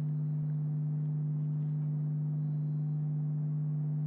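A steady low-pitched hum with a few fainter overtones above it, unchanging in pitch and level.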